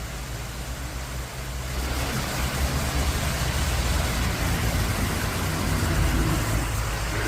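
Waterfall water rushing in a steady noise with a heavy low rumble, growing louder about two seconds in.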